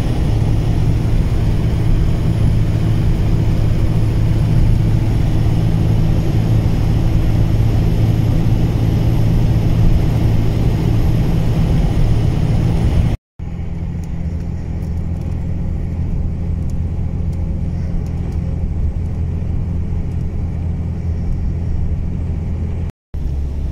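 Steady engine and road noise heard from inside a Dodge Ram pickup's cab while it cruises on a highway, with a low hum under it. The sound drops out for a moment about halfway through and again just before the end, and is a little quieter after the first break.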